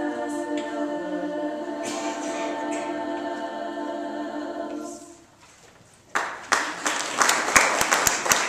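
Women's choir singing a cappella, holding a final chord that ends about five seconds in. After a brief hush, applause with many hand claps breaks out.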